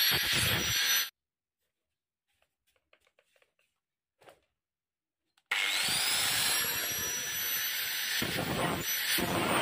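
Hand angle grinder cutting through a piece of a worn ceramic-cutting blade, stopping abruptly about a second in. After a few seconds of near silence with faint clicks, the grinder spins up again with a rising whine and grinds the edge of the metal piece with an abrasive disc, the pitch dipping and rising with the load.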